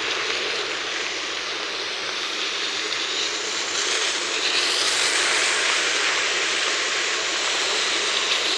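Heavy rain falling, a steady rushing hiss that grows louder about four seconds in.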